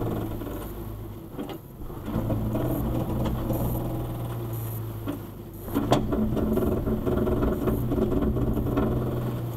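2010 Toyota FJ Cruiser's 4.0-litre V6 idling with the truck barely moving, heard from inside the cabin, with a steady low hum. A single sharp click about six seconds in.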